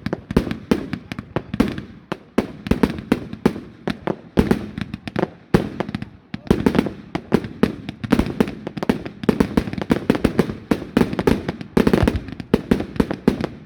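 Fireworks display going off in a rapid, unbroken barrage of sharp bangs, several a second, with heavy booming low end.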